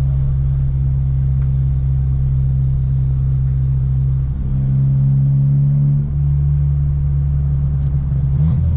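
Steady low rumble of a car driving, heard from inside the cabin: engine and road noise, briefly louder for about two seconds around the middle.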